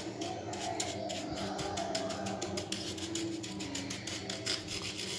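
Wooden spatula pushing coarse granulated sugar across a dry, hot nonstick pan: a steady gritty scraping made of many quick small scratches. The sugar is being spread in an even layer to dry-caramelise without water.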